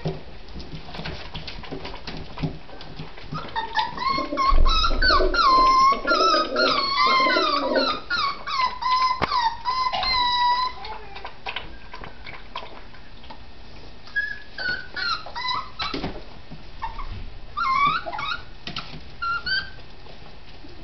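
A litter of beagle puppies whimpering and whining, several high-pitched cries overlapping at once. The cries are thickest and loudest for the first half, then thin out to scattered single whines. Light ticking and scuffling runs underneath.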